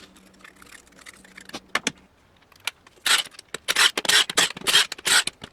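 Hand ratchet wrench working in quick back-and-forth strokes on the bolts of a 700R4 transmission's pump. A few light metal clicks come first, then from about three seconds in a steady run of rasping ratchet strokes, two to three a second.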